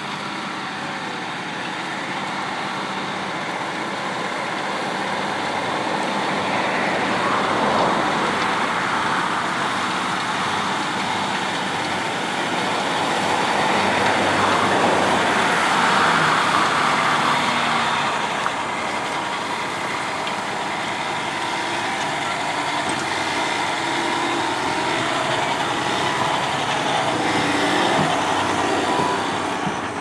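John Deere 6250R tractor's six-cylinder diesel engine working steadily under load as it pulls a six-furrow plough. The sound swells louder twice, a few seconds in and again around the middle, as the tractor comes nearer.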